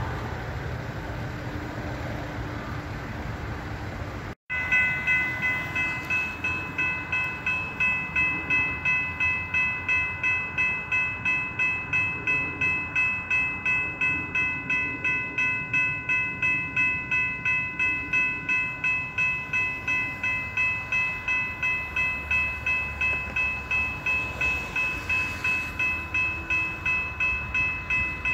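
Railroad grade-crossing bell ringing steadily at about two strikes a second. It comes in suddenly about four seconds in, after a low steady train rumble.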